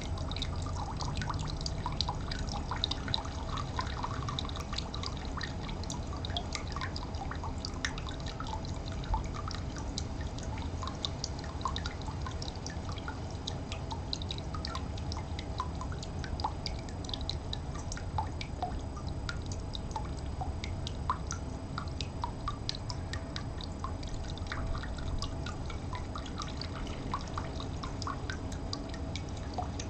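Water trickling and dripping: a steady run of many small, irregular plinks and drips over a low, steady rumble.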